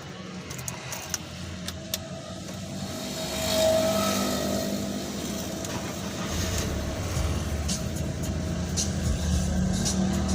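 BMW 318i E46's N42B20 inline four-cylinder engine running steadily, growing louder a few seconds in and again past halfway.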